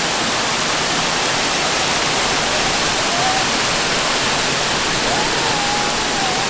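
Steady rush of a nearby waterfall, with a faint wavering whistle rising and holding near the end.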